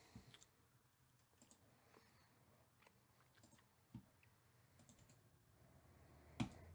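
Near silence broken by faint, scattered clicks of a computer mouse and keyboard. The loudest is a soft knock about four seconds in.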